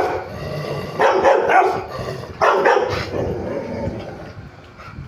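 Rottweiler barking, several barks in two short runs, about a second in and again about two and a half seconds in, then dying away.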